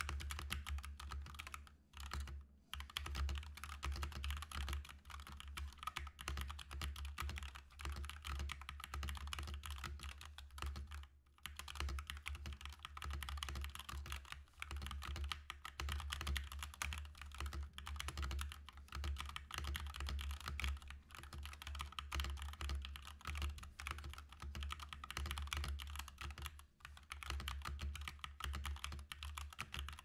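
Continuous fast typing on a Boyi IK87 tenkeyless hot-swappable mechanical keyboard in stock form, a dense run of keystrokes with short breaks about two, eleven and twenty-six seconds in.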